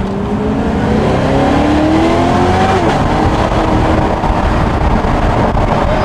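Supercharged V8 of a third-generation Cadillac CTS-V accelerating hard, heard from inside the cabin. The engine pitch climbs steadily, drops abruptly at an upshift about three seconds in, and then pulls on in the next gear.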